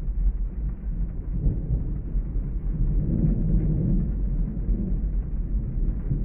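Steady rain ambience with a low rolling rumble of thunder that swells about one and a half seconds in and eases off after about four seconds.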